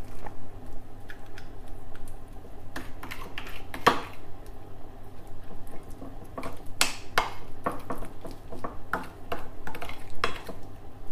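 A spoon scraping and clinking against a ceramic dish while spreading a thick sauce marinade over meat: irregular taps and scrapes, the loudest about four and seven seconds in.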